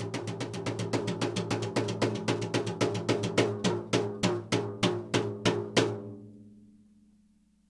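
Drum played in a fast roll whose strokes spread out and grow louder, ending a little under six seconds in; the drum's ring then fades away.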